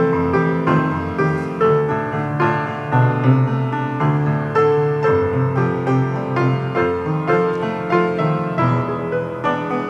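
Piano playing the instrumental accompaniment of a sacred art song alone, a run of struck notes between sung phrases.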